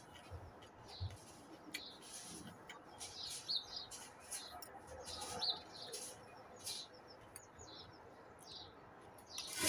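Birds chirping outdoors, with close eating sounds: chewing and the clink and scrape of a spoon and fork on a plate, as short scattered clicks.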